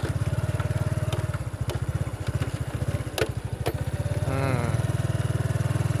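A small engine running steadily with a rapid, even low chugging.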